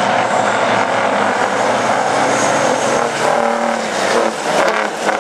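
Big-rig racing trucks' engines running hard in a race, a dense steady drone. In the second half, engine notes rise and fall as trucks go by.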